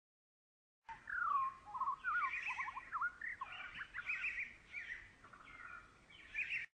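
A songbird singing a run of varied whistled phrases and quick trills, a birdsong sound effect marking morning. It cuts in about a second in and stops abruptly just before the end.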